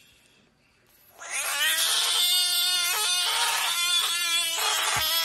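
Budgett's frog screaming in defence when poked. It gives a long, loud, wailing cry that starts about a second in and breaks into a few choppy pulses in the middle.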